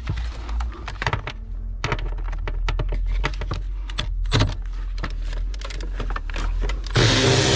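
Scattered metallic clicks and rattles of hand tools and loose bolts being handled while a 13 mm bolt is taken out of a car. Near the end a power tool runs in one loud burst of about a second.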